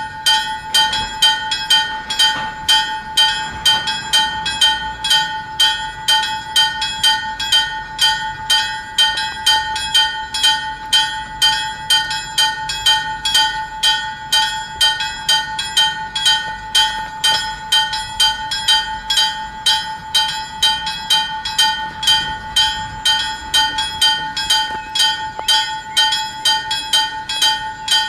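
Level crossing warning bell ringing in a steady, even rhythm of about two strikes a second, the crossing's warning that a train is approaching.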